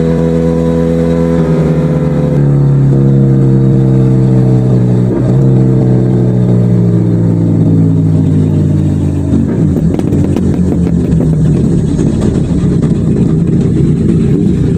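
Motorcycle engine and exhaust while riding at a steady cruise, its pitch easing slowly down. About two-thirds of the way through the steady tone gives way to a rougher, noisier rush.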